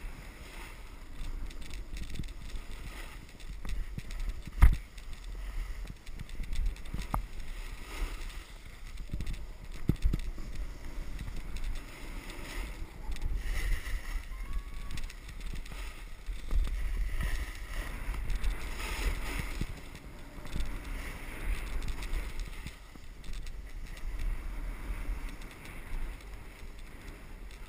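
Wind buffeting an action camera's microphone while riding down a groomed snow run, a steady low rumble with the scrape and hiss of sliding over packed snow. Two sharp knocks stand out, one about five seconds in and one about ten seconds in.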